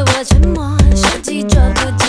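Background music with a steady, heavy beat and a melody line over it.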